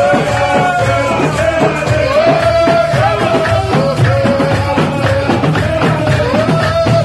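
A group of men chanting Islamic praise songs to the Prophet (madih nabawi) in chorus, with long held notes, over a fast steady beat of bendir frame drums.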